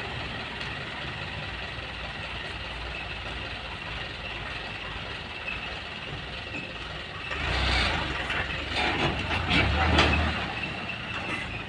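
Diesel dump truck engine labouring as the truck crawls through deep mud. It swells into harder revving twice, about two-thirds of the way in and again near the end.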